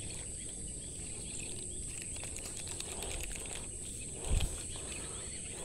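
Insects droning steadily at a high pitch over faint outdoor noise, with one dull low thump a little over four seconds in.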